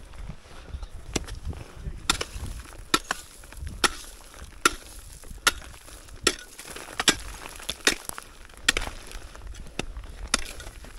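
A digging tool, such as an ice axe or shovel, chopping into stony, icy ground to level a tent platform. About eleven sharp strikes come in a steady rhythm of a little more than one a second.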